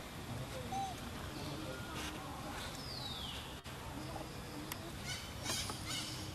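Outdoor ambience with scattered short high chirps and calls, including one clear falling whistle about three seconds in, over a steady low background rumble.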